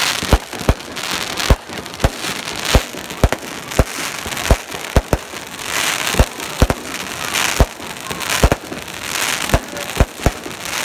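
Aerial fireworks bursting overhead in quick succession: sharp bangs about two a second at irregular spacing, over continuous crackling from the sparkling stars.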